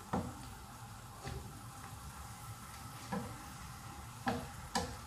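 Wooden spatula stirring sheep's heart and offal in a non-stick frying pan, with a few short knocks of the spatula against the pan over a faint steady sizzle of the bubbling cooking liquid.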